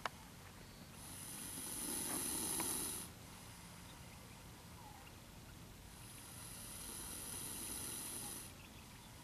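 Cobra hissing twice, each hiss about two seconds long, the first louder than the second. A short sharp click comes right at the start.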